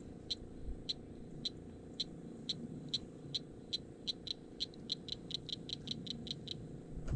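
Cricket frog calling from the pond: a series of sharp, high clicks, about two a second at first, speeding up to about five a second before stopping near the end.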